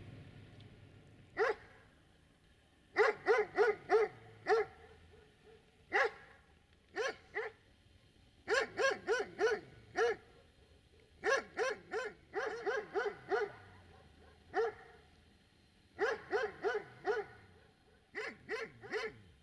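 A dog barking repeatedly, in runs of several quick barks with short pauses between them.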